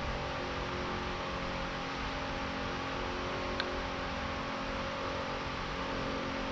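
Steady mechanical hum over an even hiss, holding several constant tones at one level throughout, with a single small tick about halfway.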